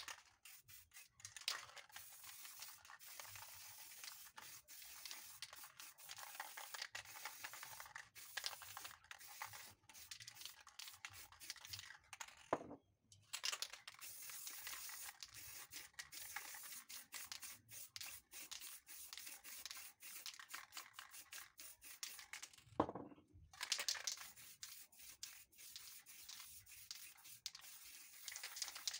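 Aerosol spray-paint cans hissing in long sprays of paint onto poster board, stopping briefly twice with a short knock each time.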